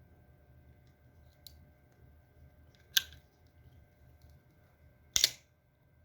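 Switchblade action clicking and snapping: a faint click, then two sharp metallic snaps about two seconds apart, the second a quick double snap.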